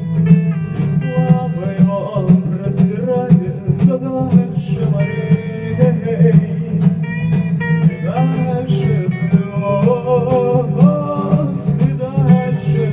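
Band music: strummed acoustic guitar with a melody line above it over a steady low accompaniment.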